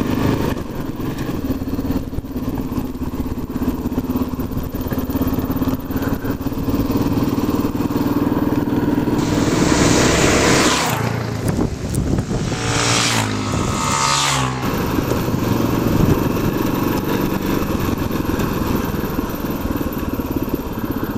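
Single-cylinder dual-sport motorcycle engine running steadily while riding. For several seconds in the middle, a louder rushing noise and changing engine pitch rise over it.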